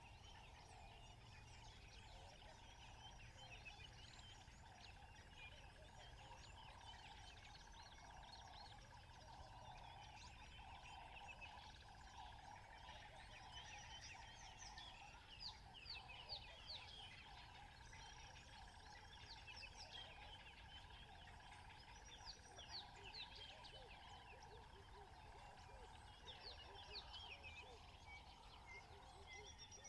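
Faint natural outdoor ambience: many small birds chirping in quick high strokes over a steady background hum, with a few louder bursts of chirping partway through.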